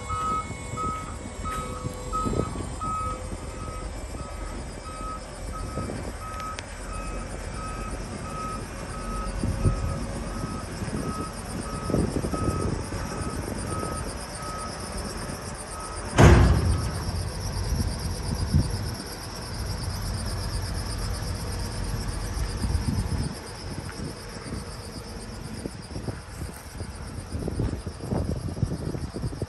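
Electronic warning beeper on a GMC TopKick C7500 attenuator truck sounding about two even beeps a second over the truck's idling engine, stopping a little before halfway. A single loud thump comes a couple of seconds later, and a high steady chirring runs through the second half.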